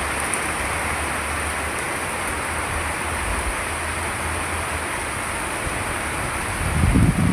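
Monsoon rain falling steadily, an even hiss, with a low rumble building up near the end.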